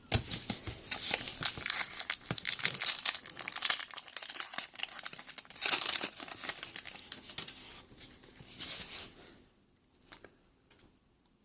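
A trading-card pack wrapper being torn open and crinkled in the hands, a dense crackling that stops about two seconds before the end, leaving a few faint clicks.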